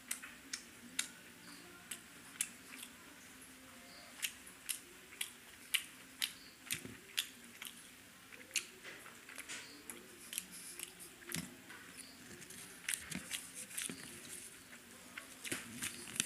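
Close-up mouth sounds of a person eating a boiled egg: chewing with an irregular run of sharp lip-smacks and mouth clicks, several a second.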